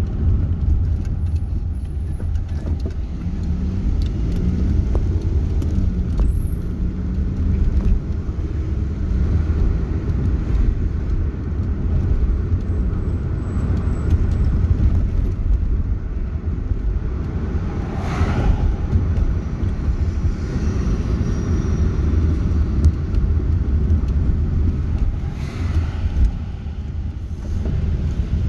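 Steady low rumble of a car's engine and tyres on the road, heard from inside the cabin while driving slowly through town.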